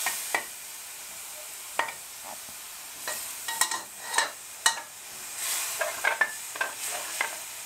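Metal spatula scraping and clinking against a steel wok in irregular strokes while stirring minced pork in curry paste and coconut milk, which sizzles steadily underneath.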